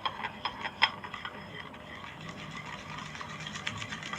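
A pen stirring glue and borax activator in a small container, knocking and clicking against its sides in an irregular run of quick taps.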